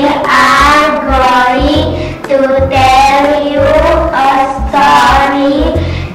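A girl singing a song, with held notes that glide in pitch, over instrumental backing music.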